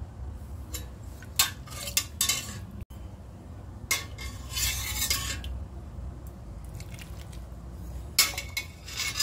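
Ladle clinking and scraping against a stainless-steel pot while scooping broth, in short clusters of knocks with a longer stretch of sloshing liquid about halfway through.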